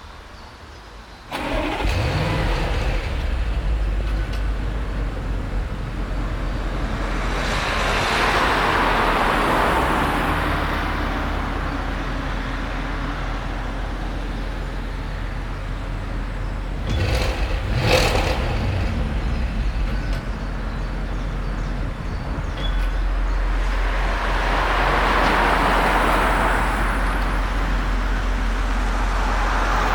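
2017 Audi S8 Plus's twin-turbo 4.0-litre V8 starting about a second in with a short rising flare, then idling steadily, with a brief rev blip a little past halfway.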